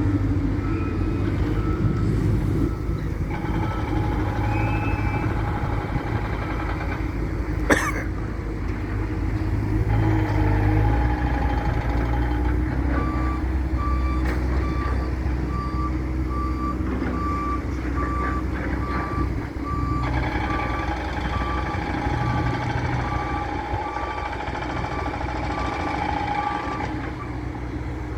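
Diesel engine of a construction loader running under load, rising and falling. A reversing alarm beeps steadily at the start and again through the second half, and a single metallic clank sounds about eight seconds in.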